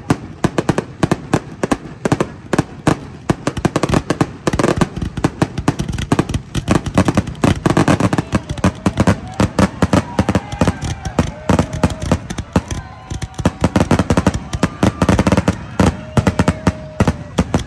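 Fireworks display: a dense, rapid-fire run of bangs and crackle as shells and ground-launched comets go off, many reports a second.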